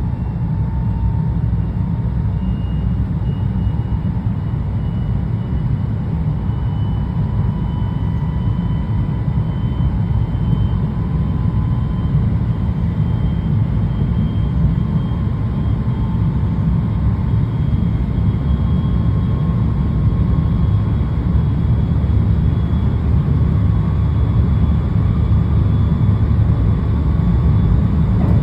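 JR West 223 series electric train running, its traction motors whining over a steady low rumble, the whine climbing slowly in pitch. A second, slightly off-key tone is mixed in with the motor whine, which is suspected to be an abnormal noise from a motor.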